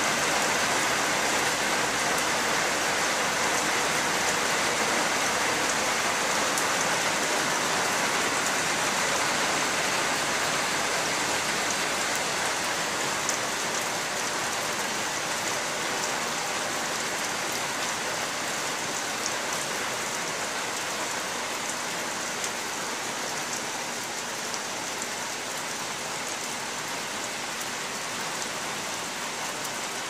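Steady rain falling on trees, grass and the roof, a dense even hiss with occasional louder drips from water running off the eaves; it eases off slightly over the half minute.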